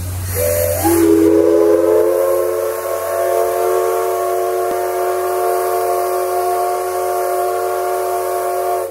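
C11 325 steam tank locomotive's steam whistle blowing one long blast over a rush of hissing steam. It starts with a brief short note, then slides up in pitch as it opens and holds steady for about eight seconds before cutting off suddenly.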